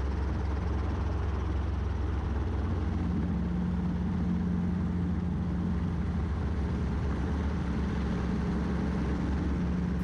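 Robinson R22 helicopter's piston engine and rotors running at a hover, heard inside the cabin as a steady low drone, with a humming tone that grows stronger about three seconds in.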